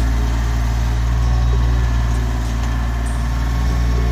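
Compact tractor engine running steadily with a low, even hum while the tractor works its front-loader bucket on palmetto roots.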